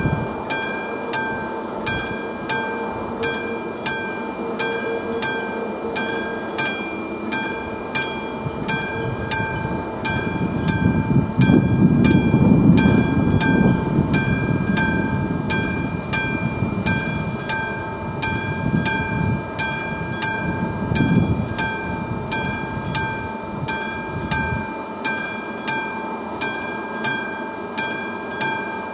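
Level-crossing warning bell, a classic mechanical bell, striking steadily at about three strokes every two seconds while the crossing is in its warning phase. A low rumble swells up about ten seconds in and dies away after about twenty seconds.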